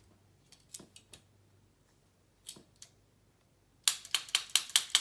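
Kitchen tongs being snapped open and shut: a few single clicks, then about a second in from the end a fast run of sharp clicks.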